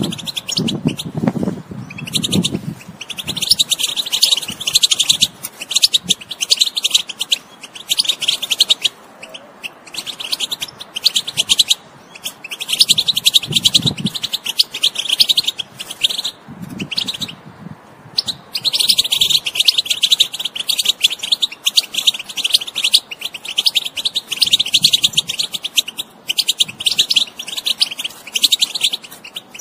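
European goldfinch singing: long runs of rapid, high-pitched twittering, in phrases of a few seconds broken by brief pauses.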